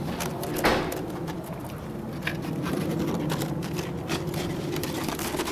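Pattering, crunching steps in deep snow, with a small dog bounding through it: a run of short, uneven crunches over a steady rustling hiss.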